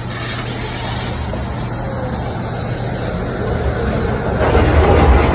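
City street traffic: vehicle engine rumble and road noise with a steady low hum, growing louder near the end.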